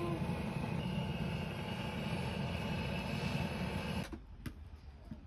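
Steady rushing roar of a butane torch flame lighting the firewood, shut off abruptly about four seconds in, after which a few faint clicks are heard.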